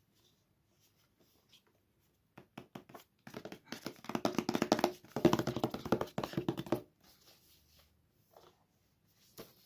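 Hands handling iPad packaging during an unboxing. A few light taps come first, then a dense run of rapid clicks and crackling for about three seconds, with a single click near the end.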